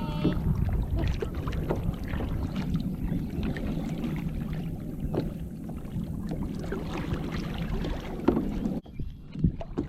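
A kayak out on the water with wind rumbling on the microphone, and many small clicks and knocks scattered through it. The wind rumble cuts out abruptly near the end.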